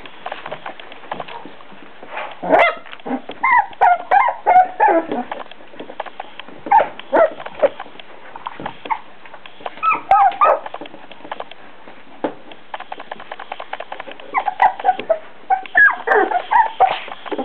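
Four-week-old beagle puppies yipping and whimpering: several clusters of short, high calls a few seconds apart, with frequent light clicks in between.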